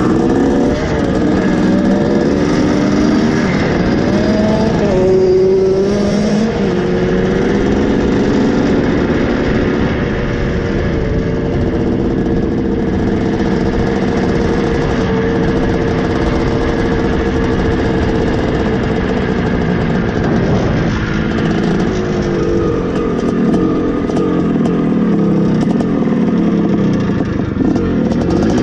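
1981 Suzuki RM465's 465 cc single-cylinder two-stroke engine running under way, its pitch rising and falling with the throttle and gear changes, steadier through the middle and dropping near the end as the bike slows. The owner says the engine is starting to get a bit rattly and is due for a top-end rebuild.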